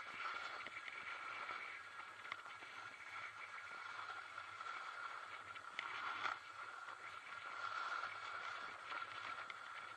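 Steady hiss and scrape of a snowboard sliding and carving down groomed snow, with a sharper scrape about six seconds in.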